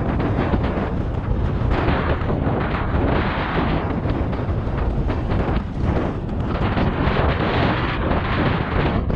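Strong wind buffeting the microphone: a loud, steady, heavy rumble.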